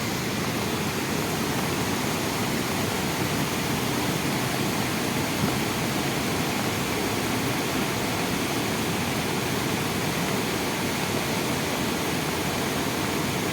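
Beas River in flood, its fast, high water making a steady, unbroken noise of rushing water.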